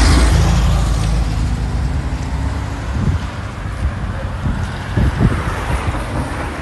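Car road noise and rumble with wind rushing at an open window, loudest at the start and easing off, then a low rumble with a few dull knocks.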